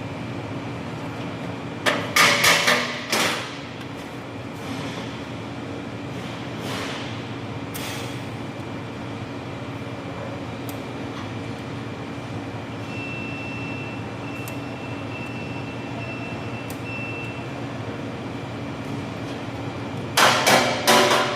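Steady low hum, with a quick cluster of sharp knocks about two seconds in and a fast run of sharp knocks starting near the end.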